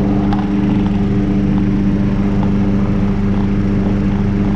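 Petrol lawnmower engine running steadily at a constant speed, an even, unchanging engine drone.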